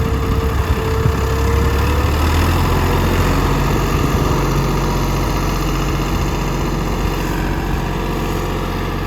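Ford 555B backhoe's four-cylinder diesel engine running steadily; about two seconds in its note changes, then it holds steady.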